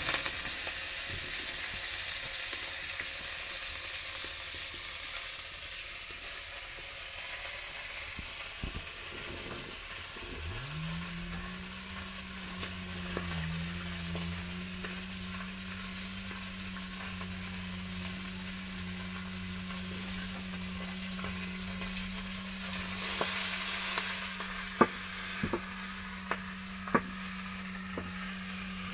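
Sukuma wiki (collard greens) sizzling as they fry in a metal pan over a firewood fire, with stirring. A steady low hum comes in about ten seconds in, and there are a few sharp knocks near the end.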